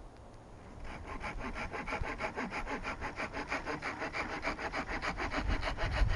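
Hand saw cutting through wood in quick, even back-and-forth strokes, starting about a second in.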